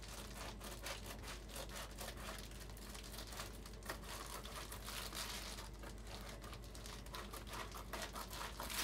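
Sheet of Reflectix foil-faced bubble insulation crinkling as it is handled and pressed into a window frame, a dense, irregular run of small crackles.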